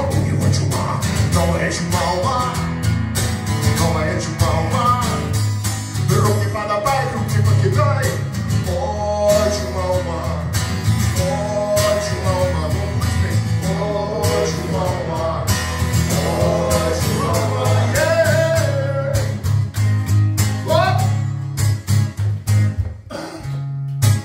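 Steel-string acoustic guitar strummed steadily while a man sings a melody over it. About three-quarters of the way through the voice stops and the guitar plays a run of short, separate strums.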